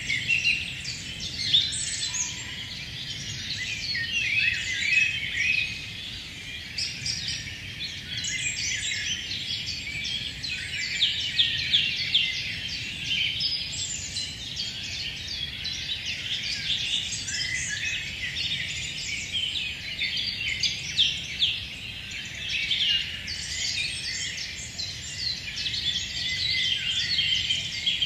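A chorus of many songbirds singing at once in a forest at dusk: dense, overlapping chirps and trills with no pause, over a faint low hum of breeze.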